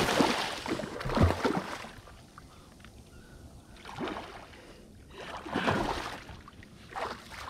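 Water splashing and sloshing beside a kayak in several separate bursts, with a short low knock about a second in, as a hooked redfish is played close to the boat.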